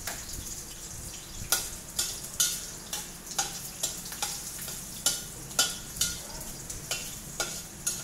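Long metal spatula scraping and knocking against a steel wok during stir-frying, about two strokes a second, some with a short metallic ring, over a steady sizzle of frying food.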